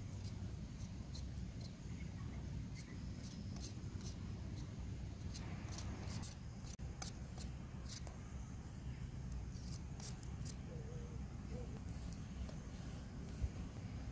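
Metal vegetable peeler scraping the skin off a raw sweet potato in short, quick, repeated strokes, over a steady low rumble.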